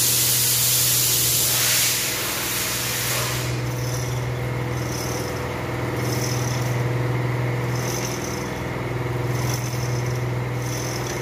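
Pressurised air hissing out for about the first two seconds, over a steady low machine hum; a faint high chirp repeats about once a second later on.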